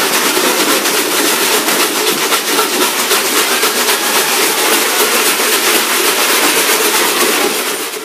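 Many homemade shaker instruments, made from plastic jugs, chip canisters and coffee cans, shaken together at once: a dense, continuous rattling that cuts off abruptly near the end.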